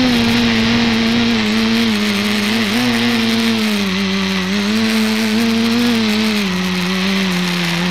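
ETFD2 multicopter's electric motors and propellers droning in flight, heard close up from its onboard camera, with a steady hiss of prop wash. The pitch rises and falls with the throttle, dips briefly about a third of the way in and settles lower near the end.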